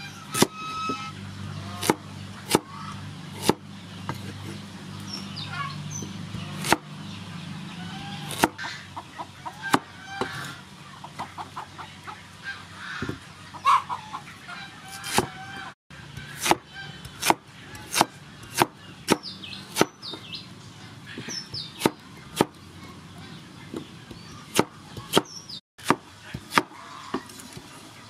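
Cleaver chopping carrots and a peeled root on a thick wooden chopping board: sharp knocks at irregular intervals, about one a second. Chickens cluck faintly in the background.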